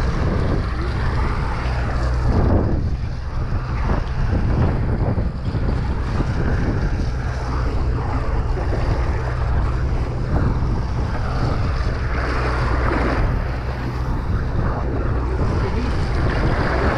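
Wind buffeting the microphone and sea water washing along a fishing boat's hull, over the boat's steady low drone.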